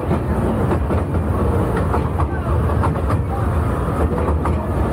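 Severn Lamb park train running, heard from on board: a steady low rumble of the train and its carriages, with irregular clicks of the wheels over the track.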